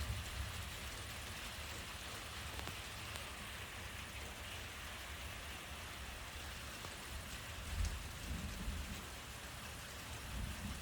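Steady hiss of heavy rain during a thunderstorm, with low rumbles of thunder at the start and again about eight seconds in.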